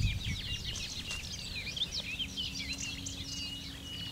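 Birds chirping and singing, with many quick overlapping calls, over a low rumble at the start. A faint steady hum comes in about halfway.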